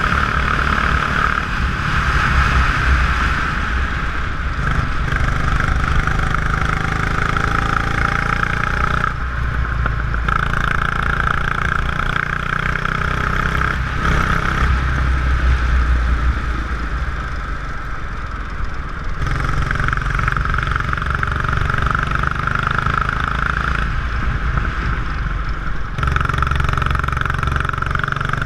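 Go-kart engine running hard at speed, its pitch rising and falling with the throttle. The note eases off several times, around ten, fourteen, twenty and twenty-five seconds in, as the kart slows for corners, then picks up again.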